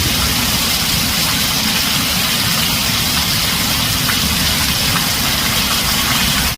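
Heavy rain drumming steadily on a tin roof, with a steady low rumble underneath.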